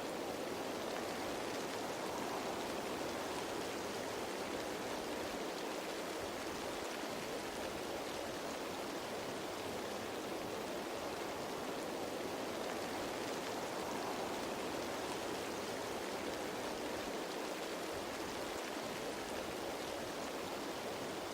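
Steady rain falling on leaves: an even wash of sound with no separate drops standing out, swelling and easing gently every several seconds.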